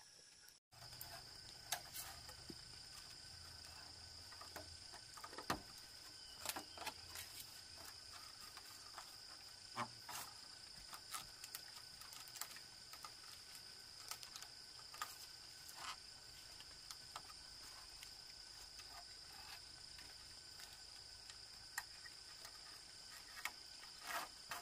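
Steady high-pitched drone of insects in the surrounding forest, with scattered light clicks and knocks from bamboo poles being handled and lashed with twine.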